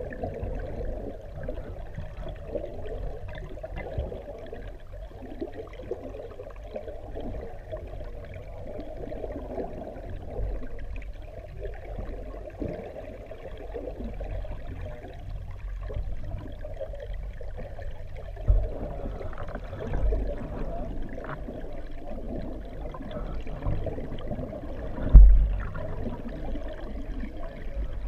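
Water flowing through a fish ladder pool, heard underwater through a GoPro housing: a steady low rush of water and bubbles. It is broken by a few dull knocks in the second half, the loudest near the end.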